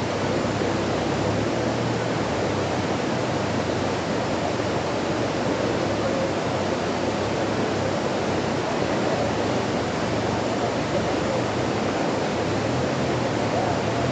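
Stream water rushing steadily: an even, unbroken hiss of flowing water.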